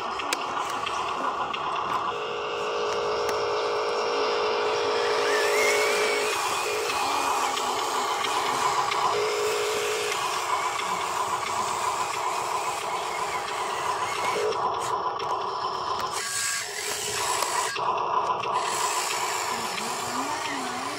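Electric motors of a toy-scale Huina RC dump truck and RC excavator whining steadily. The whine stops, starts and shifts in pitch every few seconds as the models drive, tip and dig.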